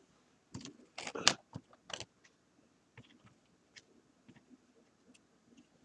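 Small hard clicks and clacks from a model train locomotive on the layout track, a few sharper ones in the first two seconds, then sparse light ticks.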